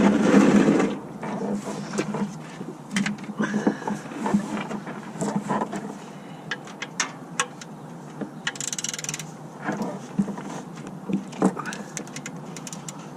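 Irregular clicks and light metal knocks of a wrench as the oil drain plug is threaded back into the oil pan and tightened. A short hiss comes about nine seconds in.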